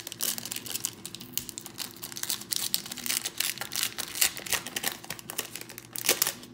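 Black foil wrapper of a Panini Obsidian hobby card pack crinkling in the hands as it is opened. It makes a fast, irregular run of crackles.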